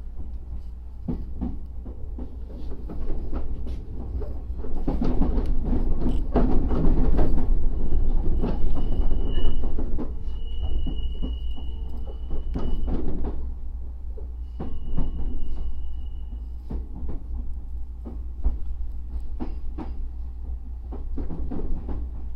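Refurbished Odakyu 8000 series electric train running, with a steady low rumble and wheels clacking over rail joints, loudest midway. A thin, steady high squeal from the wheels comes in twice, in the middle and a little later.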